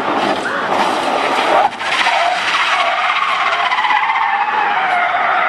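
A car drifting: engine revving hard with tyres screeching, and a brief drop in the sound about a second and a half in.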